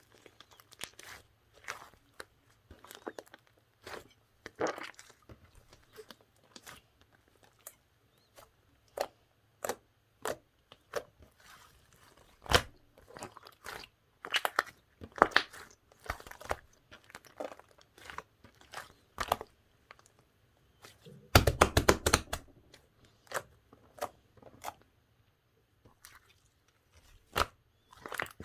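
Slime being squeezed and worked by hand, giving an irregular string of sharp crackling clicks and pops. A dense run of pops comes about three quarters of the way through.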